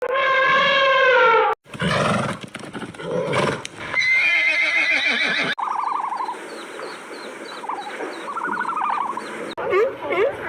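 A string of different animal calls cut one after another, including a horse whinnying. Near the end comes a quick run of short repeated honking calls, about three a second.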